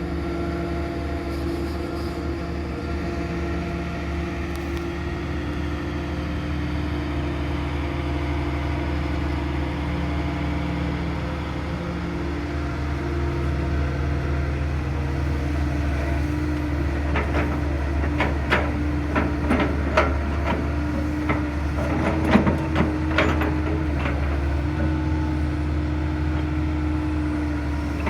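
Hydraulic excavator's diesel engine running steadily under working load. In the second half a string of sharp knocks and clanks joins it.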